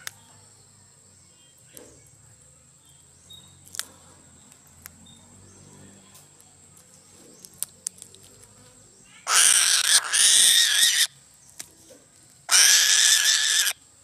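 An eagle gives two loud, harsh screaming calls, the first lasting nearly two seconds about nine seconds in, the second shorter a few seconds later. Before the calls there are only a few faint ticks while it feeds on a fish.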